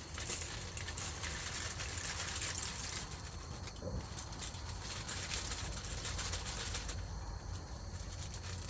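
Ridge Monkey gas camping stoves burning under a pan of boiling water: a steady hiss over a low roar, easing briefly twice.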